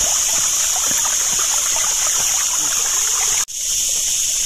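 Spring water running out of a pipe and splashing, with a steady high hiss over it. The sound drops out for an instant about three and a half seconds in, and the splashing comes back fainter.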